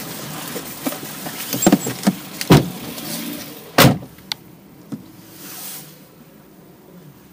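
Noise inside a car with several sharp knocks and one loud thump about four seconds in, after which the background is quieter.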